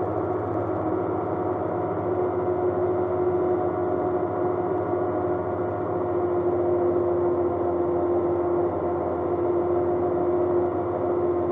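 Rotax aircraft engine droning steadily in level flight, holding a constant pitch.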